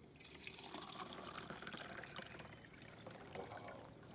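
Faint trickling and dripping of water, with small ticks.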